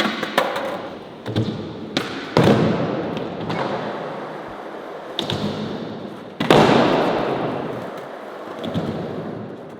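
Skateboard on a wooden surface: sharp board clacks and two heavy landing thumps, about two and a half seconds in and again about six and a half seconds in, each followed by the rolling noise of the wheels on wood fading away.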